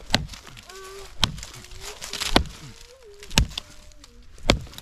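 Five hard strikes about a second apart from a tool being swung steadily at camp, with a faint wavering hum between the blows.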